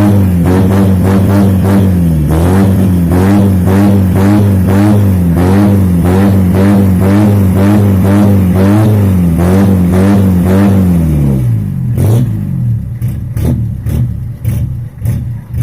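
Mitsubishi L300 engine revved through a custom single-funnel truck-style exhaust, its pitch rising and falling again and again, then dropping back about eleven seconds in to an uneven, pulsing idle.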